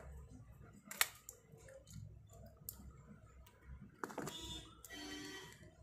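Small clicks and taps of a bare mobile-phone circuit board and its battery being handled and fitted, with one sharp click about a second in. A faint pitched sound follows near the end.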